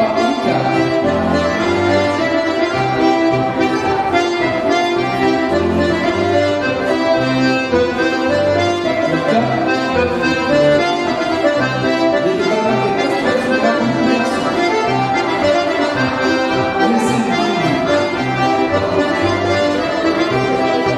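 Accordion music playing a polka tune over a steady, repeating bass beat.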